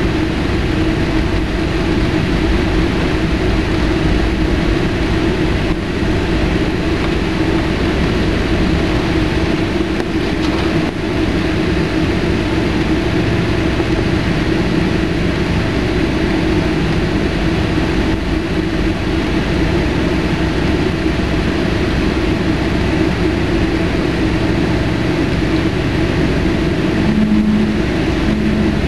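Jet airliner cabin noise while taxiing: the engines run at a steady low power, a constant hum over an even rush. Two brief low tones sound near the end.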